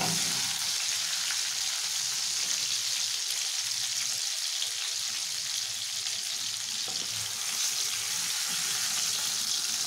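Stuffed chicken breast fillets sizzling in hot butter, olive oil and garlic in a frying pan, a steady hiss of bubbling fat.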